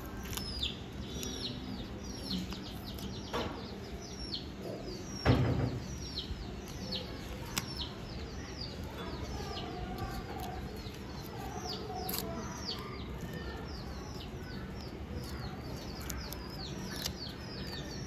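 Birds chirping, short falling chirps repeated about once or twice a second, with a single thump about five seconds in.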